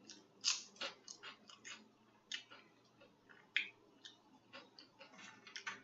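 Close-up mouth sounds of a person eating: a string of irregular, sharp, wet smacks and clicks from the lips and tongue while chewing.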